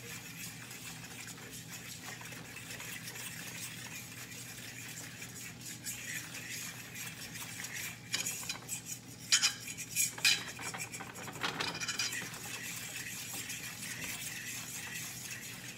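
A fork stirring and scraping a thick roux of flour and hot vegetable oil in a large skillet, over a steady low sizzle. Between about eight and twelve seconds in, the fork knocks and scrapes against the pan several times more loudly.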